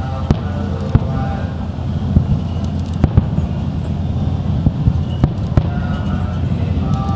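Fireworks bursting: a string of sharp, irregularly spaced bangs over a steady low rumble.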